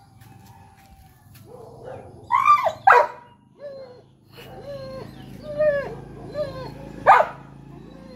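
Yellow Labrador retriever barking and whining: two sharp barks about two and a half seconds in, then a string of high, bending whines and yelps about every half second, the loudest near the end. It is the fretting of a dog left behind and wanting to follow its owner.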